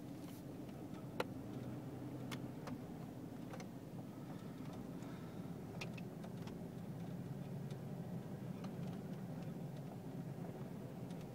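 Steady low rumble of a car driving, heard from inside the cabin, with scattered light clicks and ticks.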